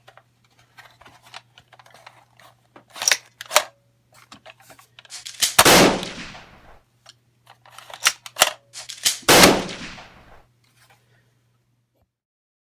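Nerf blaster handled, then two sharp clacks as it is primed, then a loud shot with a short hiss of air. The pattern happens twice. A faint steady hum runs underneath.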